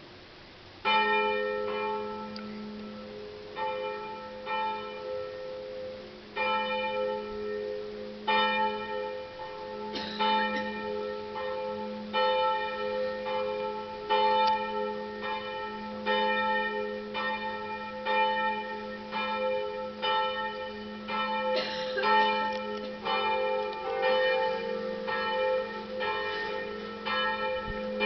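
Church bells begin ringing about a second in, their strokes falling in an uneven, overlapping pattern, and another bell joins around 23 seconds in. This is the peal rung on Saturday before the evening vigil mass.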